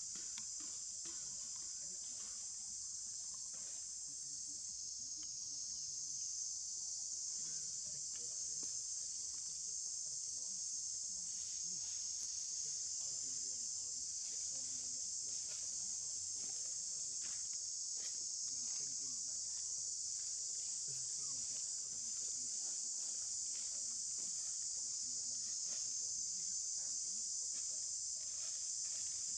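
Steady, high-pitched insect chorus that runs on unbroken, with faint scattered ticks beneath it.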